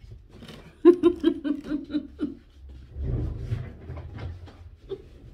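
A woman laughing: a quick run of about seven short "ha" bursts starting about a second in, then a breathier, muffled stretch.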